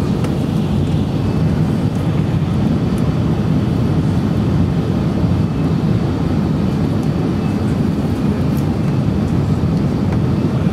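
Airbus A380 cabin noise on approach: a steady low rumble of engines and rushing air heard from inside the passenger cabin.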